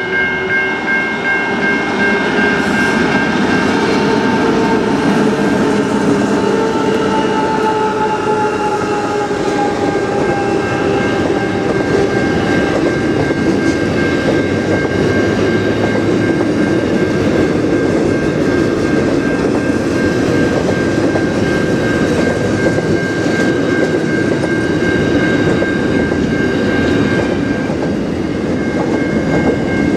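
A train passing close by: loud continuous rumble and rail noise. Two steady high tones run through it and drop out briefly near the end, while lower tones slowly fall in pitch during the first half.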